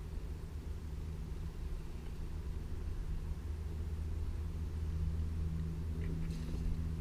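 Low, steady hum of a boat motor running, swelling slightly toward the end, with a light click about six seconds in.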